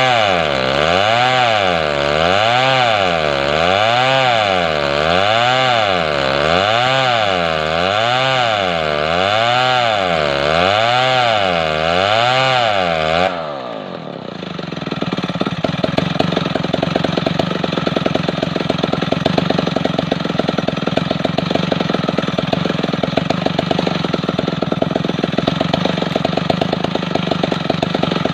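Large two-stroke chainsaw sawing a hardwood log, its engine pitch rising and falling regularly about every second and a half. About halfway through the sound changes abruptly to the chainsaw running steady at a lower speed with a fast putter.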